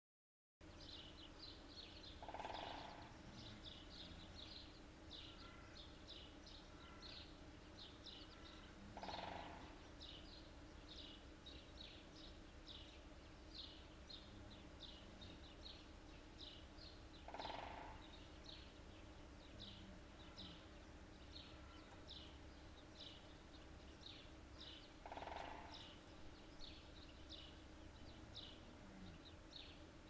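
Small birds chirping continuously. Four times, about every seven to eight seconds, a woodpecker gives a drumming roll of about half a second.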